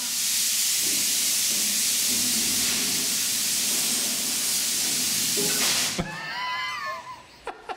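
Compressed air blasting from a hose nozzle into a microwave, a loud steady hiss that whirls the flour inside into a dust cloud, cutting off suddenly about six seconds in.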